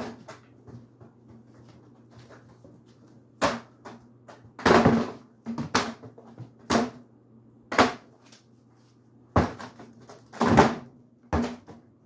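Ceiling fan running with a steady low hum while a foil birthday balloon is hit by its spinning blades: about eight sharp slaps at irregular intervals, one of them a longer crinkly scrape about five seconds in.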